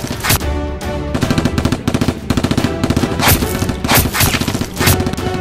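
Bursts of rapid automatic gunfire, with several louder single shots, one just after the start and three in the last two seconds, over background music.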